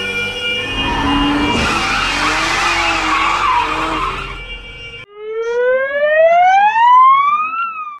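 American ambulance siren sounding as the vehicle passes, mixed with road and engine noise. About five seconds in, the sound cuts to a single siren wail that rises slowly and steadily, then turns and begins to fall near the end.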